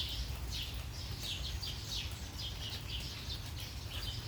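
Birds chirping and twittering: a quick run of short, downward-sweeping high chirps, several a second, over a low steady background rumble.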